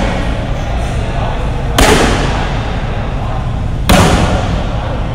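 Shin kicks landing on a handheld kick shield: two sharp smacks about two seconds apart, each with a short echo.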